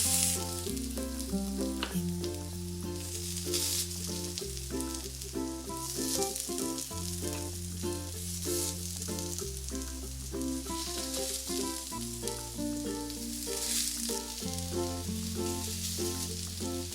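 Plantain slices frying in coconut oil in a non-stick pan: a steady sizzle that swells up several times as slices go into the hot oil. Light background music plays throughout.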